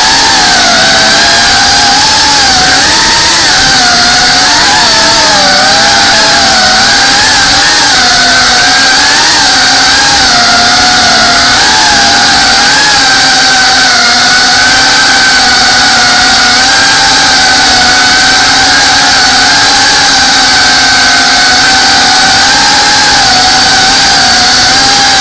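FPV quadcopter's brushless motors and propellers whining, heard through the camera mounted on the drone. The pitch wavers up and down through the first ten seconds or so, then holds steadier.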